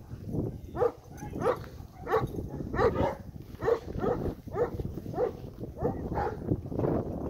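A grey horse cantering in a circle on a lead, blowing out a short, hard breath with each stride, about three breaths every two seconds.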